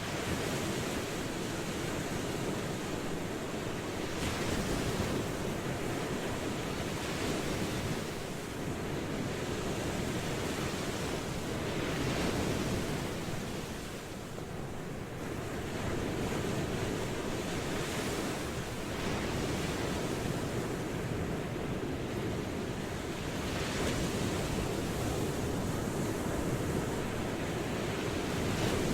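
Ocean surf washing in continuously, swelling and easing every few seconds as the waves come in.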